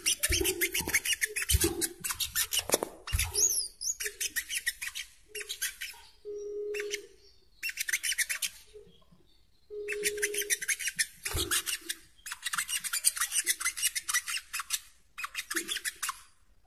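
Brown-throated sunbird (sogok ontong) song: rapid, high-pitched twittering in bursts of a second or two, separated by short pauses.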